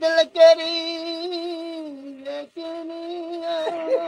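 Unaccompanied singing of a Punjabi folk song: one voice holds two long, slightly wavering notes, with a short break about two and a half seconds in.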